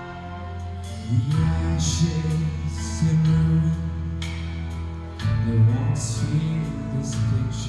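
A man singing a slow song into a handheld microphone over instrumental accompaniment, heard through a sound system. The accompaniment plays alone briefly, and his voice comes in about a second in.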